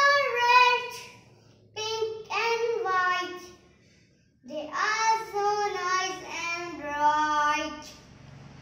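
A young boy singing a nursery rhyme unaccompanied, in three sung phrases with short breaks between them, the longest break about four seconds in.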